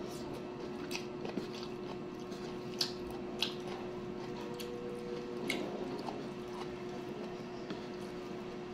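A person chewing food eaten by hand (cabbage with corn rice), with a few sharp mouth clicks over a steady low hum.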